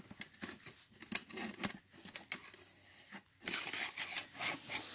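Handling noise: scattered light clicks and knocks, then from about three and a half seconds in a louder rustling, scraping noise, as the go-kart is lifted and the phone moved about.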